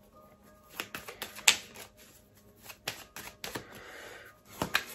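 Tarot cards being shuffled and handled: a run of sharp card clicks and flicks, with a short rustling shuffle near the end, over soft background music.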